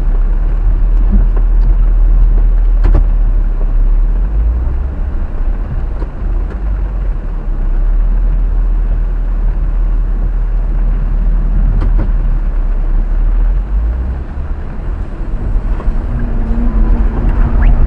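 Jeep Wrangler Unlimited driving an off-road dirt trail: a steady low rumble of engine and tyres, with a few light knocks.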